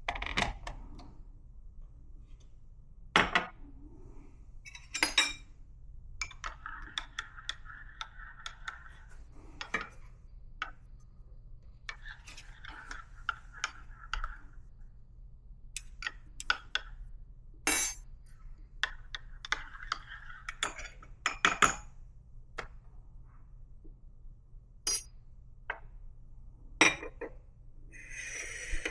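Cups and small metal and ceramic equipment clinking and knocking against each other and a hard surface, in scattered clinks with a few sharper knocks. Three stretches of a soft steady hiss of a few seconds each come in between.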